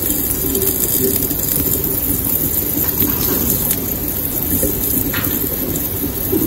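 Gallium reacting with leftover water inside an aluminum can, fizzing as a steady hiss.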